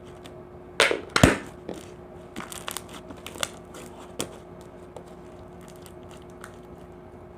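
Slime being squeezed and worked by hand: two loud squishes with crackling air-bubble pops about a second in, then scattered small clicks and pops that thin out, over a faint steady hum.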